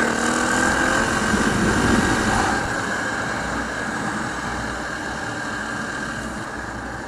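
KTM 525 EXC single-cylinder four-stroke dirt bike engine running on the road under wind rush, its note clear at first and then slowly fading as the throttle eases off.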